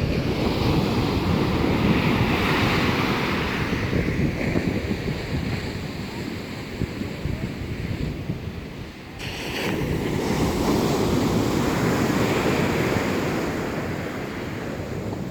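Rough sea surf breaking and washing in, in two long surges with a lull between, with strong wind buffeting the microphone.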